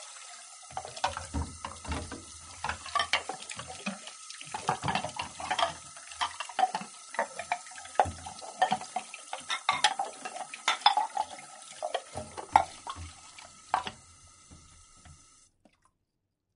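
Dishes and utensils clinking and clattering in a sink with water running, in irregular knocks of varying loudness. It stops about a second before the end.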